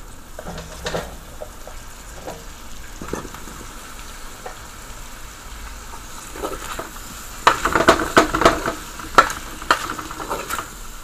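Beef and potato pieces sizzling in hot olive oil in a pot. From about seven and a half seconds in, a spoon scrapes and clatters against the pot several times as they are stirred.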